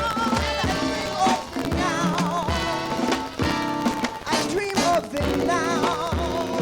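Live band music: an instrumental passage of an upbeat song with a steady drum beat and a wavering lead melody, from an accordion-led band.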